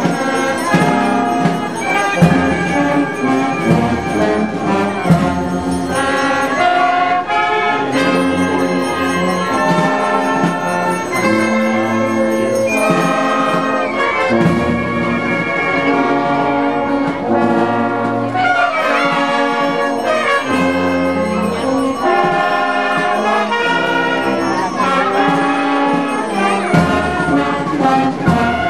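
Brass band playing slow procession music, trumpets and trombones holding long chords that change every second or two.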